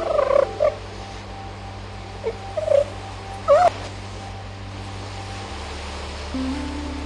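Northern elephant seal pup crying out in short, high wails about five times, one of them rising in pitch; the pup is pinned under a bull and calling for its mother.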